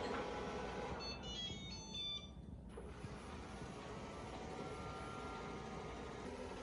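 Shark ION robot vacuum playing a short electronic chime, a quick run of beeps at stepping pitches lasting about a second and a half, in answer to the go-to-dock command. A faint steady running hum follows.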